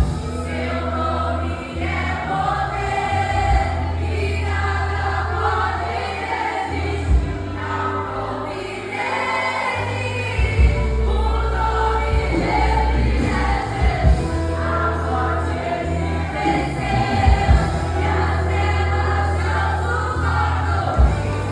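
Choir singing a gospel song with instrumental accompaniment, a steady bass line underneath and occasional drum hits.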